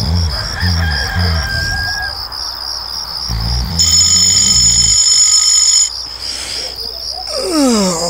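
Crickets chirping steadily in a fast, even pulse. A smartphone alarm tone rings loudly for about two seconds in the middle, and a rooster crows near the end with a falling call.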